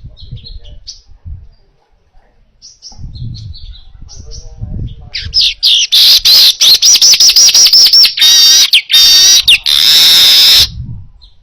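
Manyar (weaver bird) singing. Soft high chirps come first. From about five seconds in, a loud run of rapid trills and repeated up-sweeping whistled notes follows, with a buzzy stretch, and stops abruptly about a second before the end.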